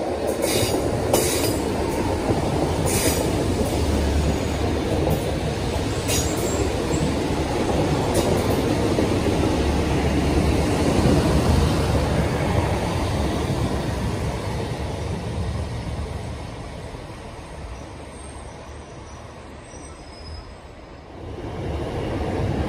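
Northern Class 150 Sprinter diesel multiple unit passing close by: its diesel engines and wheels running loud and steady on the track, with several sharp clicks in the first few seconds. The sound eases off for a few seconds and swells again about 21 seconds in as further carriages pass.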